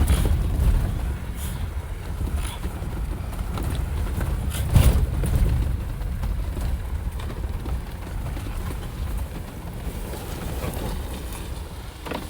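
Off-road vehicle driving over a rough trail: a low rumble of engine and tyres, broken by several knocks and jolts, the loudest about five seconds in, easing off near the end.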